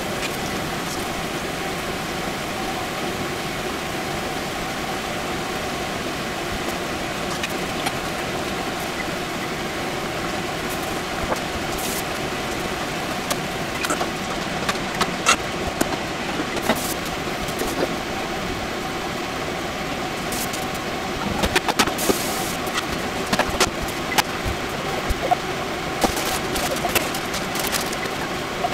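Tempura deep-frying in a pot of hot oil, a steady sizzle. From about halfway there are sharp clicks and taps of a utensil against the pot as the pieces are lifted out.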